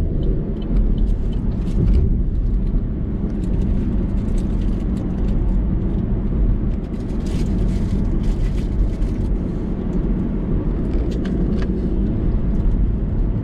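Car running, heard from inside the cabin: a steady low rumble of engine and road noise, with a few faint clicks.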